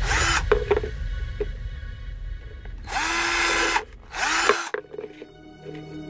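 Cordless drill running in three short bursts, spinning up and stopping each time, as it drills holes in a feeder dish.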